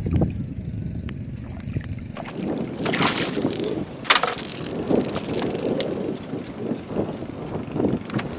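Water splashing and shrub branches rustling as a hooked small giant snakehead (toman) thrashes among flooded bushes and is hauled in, with sharper bursts about three and four seconds in and wind on the microphone.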